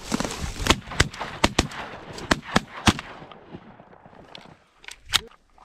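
A volley of shotgun blasts from several duck hunters firing at passing mallards: about seven shots in quick, uneven succession over the first three seconds, then a pause and a couple more near the end.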